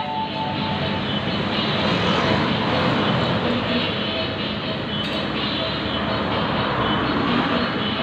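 Steady mechanical drone of running machinery, even throughout with no distinct knocks or tones.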